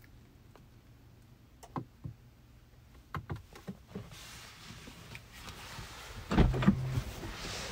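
Scattered light clicks of buttons and controls inside a car cabin over a faint low hum, then rustling and a cluster of louder thumps and knocks about six and a half seconds in as the door is opened and someone climbs out of the seat.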